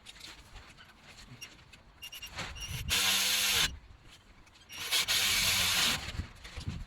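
Power tool running in two short bursts, the first just under a second long and the second just over a second, each with a spinning-up whine under a loud whirr. It is preceded by faint metallic clinks and handling sounds.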